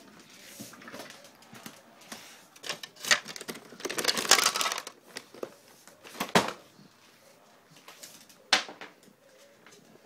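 A small dog's claws clicking and scrabbling on a hardwood floor in scattered bursts. There are a few sharp knocks and a longer scuffle about four seconds in.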